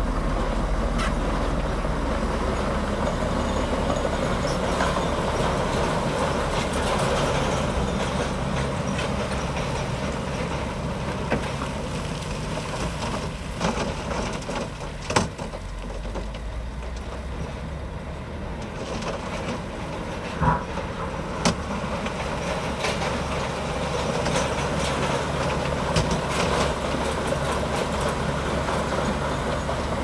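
Komatsu D65P bulldozer's diesel engine running steadily, with a few sharp clanks, the loudest about halfway through.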